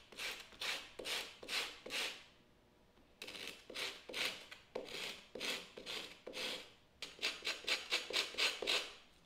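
The rough sawn end of a wooden strip being rubbed by hand on a flat sheet of sandpaper to smooth it: scraping strokes about two a second, a pause of about a second, then strokes again that quicken to about five a second near the end.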